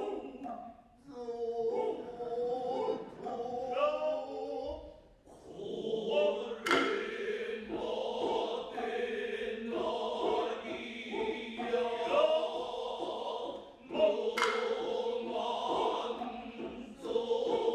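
Noh chorus chanting together in long held tones, accompanied by the hand drums, whose sharp strokes cut through the chant about 7 seconds in and again about 14 seconds in.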